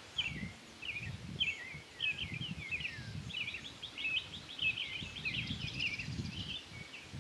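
A small songbird singing short chirps and warbled phrases, breaking into a fast run of notes in the middle, over low, uneven gusts of wind buffeting the microphone.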